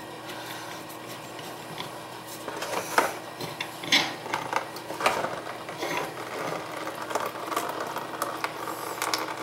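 Hand tools clicking and knocking on a plumbing fitting as an old, crusty toilet shut-off valve is taken apart, with a few sharp knocks about a second apart in the middle.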